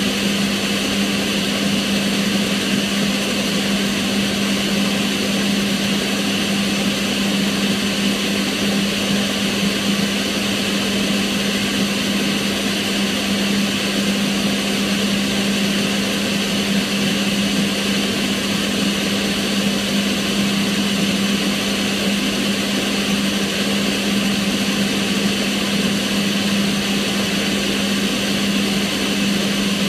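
Kitchen range hood extractor fan running steadily: a constant rush of air over a steady low motor hum, unchanging throughout.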